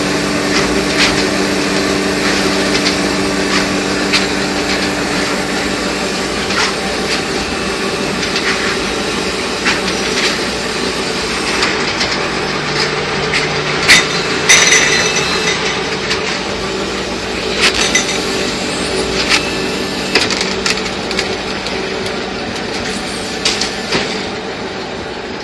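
Corn silage packaging machine running: a steady motor hum that fades after several seconds, under irregular clanks and knocks, the loudest about fourteen seconds in.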